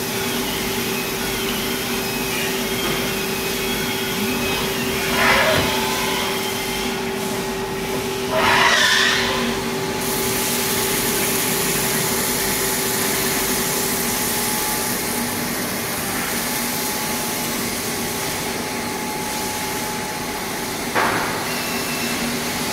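SL 30 CNC lathe running with its spindle turning a part under a coolant spray: a steady machine whir with a hum and coolant hiss. Three brief louder swells of noise come through about five, eight and a half, and twenty-one seconds in.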